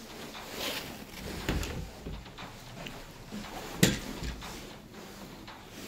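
A few soft knocks and one sharp click about four seconds in, against quiet room tone.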